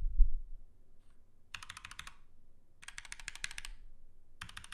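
A thump from the microphone being moved just after the start, then three short bursts of rapid keystrokes on mechanical keyboards with linear red switches, Kailh Reds and Cherry MX Reds, typed to compare how they sound.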